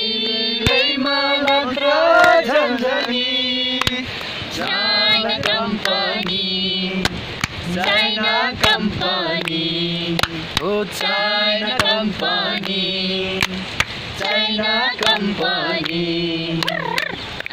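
A small group of men and a woman singing a Nepali song together, in phrases with long held notes.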